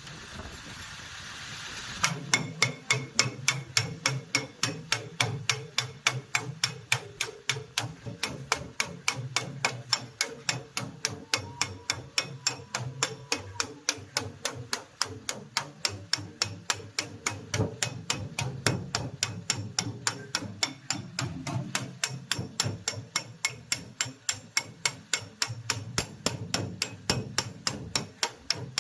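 Hammer tapping in a steady, fast rhythm, about three to four sharp blows a second, starting about two seconds in and keeping on without a break.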